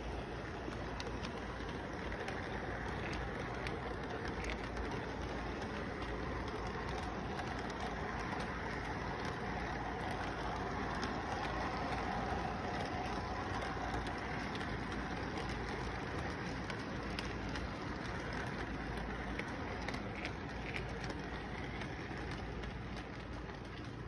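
Model train cars rolling past on their track: a steady rumble with faint clicks from the wheels, swelling somewhat about halfway through and easing near the end.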